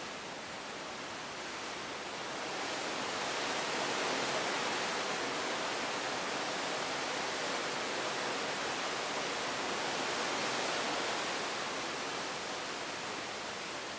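Seawater rushing along the side of a moving cruise ship's hull, a steady hiss that swells louder a few seconds in and eases off near the end.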